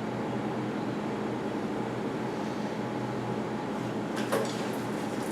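Steady mechanical hum, with a short clatter of clicks a little past four seconds in.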